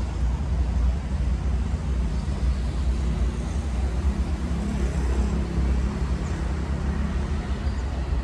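Steady outdoor background noise with a strong low rumble, with no distinct events standing out.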